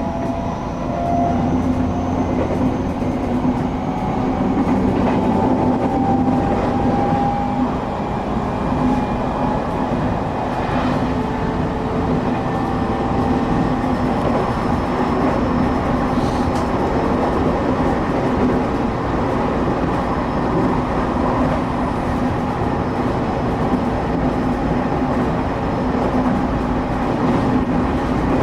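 Inside a moving passenger train car: a steady rumble of wheels on the rails with a constant motor hum, and faint high whines that come and go.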